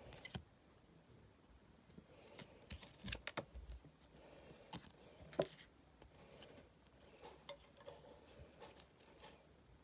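Football trading cards being handled: light clicks and taps of cards against each other, with the sharpest click about five seconds in.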